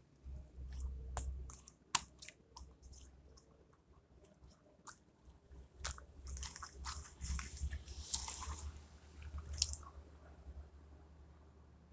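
Slime being squished and poked by hand: scattered sticky clicks and pops, with a denser wet crackling stretch from about six to ten seconds in.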